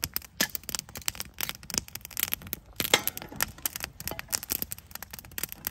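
Wood campfire crackling with many irregular sharp pops, and a louder crack about three seconds in as a small hatchet splits kindling.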